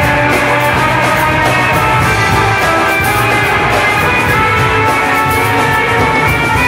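Live band playing rock-and-roots music, with electric guitar and lap steel guitar to the fore and a steady beat.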